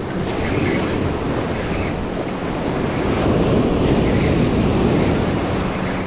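Ocean surf breaking and washing up the shore, with wind buffeting the microphone. A wave breaks and the wash swells loudest about three to five seconds in.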